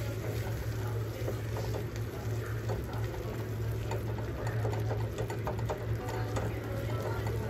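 Wooden spatula stirring thick tomato-onion masala in a stainless steel kadhai, with irregular scrapes and light taps against the pan, over a steady low hum.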